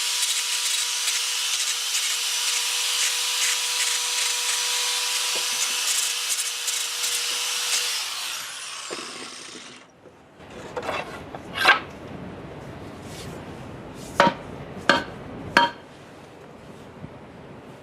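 Electric sander running steadily against the wooden adze handle, sanding it down to fit the head; it is switched off about eight seconds in and winds down. Then five sharp knocks follow over the next few seconds.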